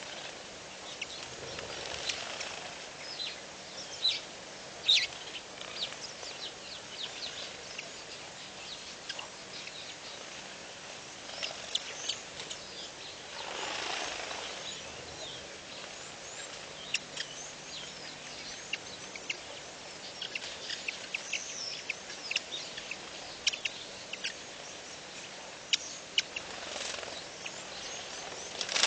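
Outdoor birdsong: many small birds chirping in short, sharp notes throughout over a steady background hiss, with a few longer, fuller calls now and then.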